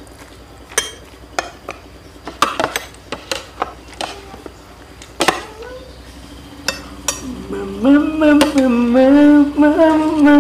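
Metal fork clicking and scraping against a metal tin as noodles are lifted out and shared onto plates: a dozen or so sharp, uneven clinks. In the last few seconds a man hums a tune, louder than the clinking.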